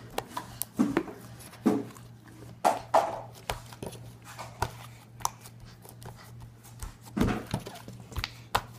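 Fluffy slime being stretched and folded by hand, giving off irregular crackling clicks and pops as trapped air pockets burst, with a couple of louder squelches.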